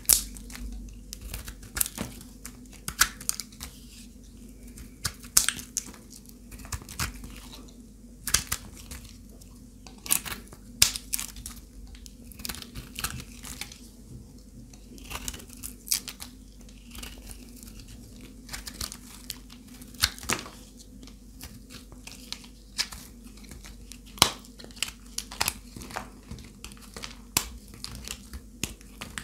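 Dry, brittle soap being cut and crunched: a continual irregular run of sharp crackles and snaps as the soap breaks apart.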